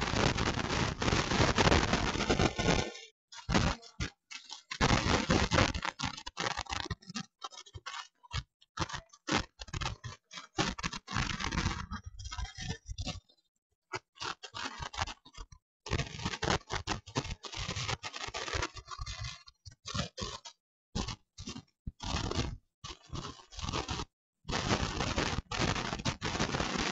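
Harsh crackling, scraping noise that keeps cutting out abruptly to silence and back in, many times over.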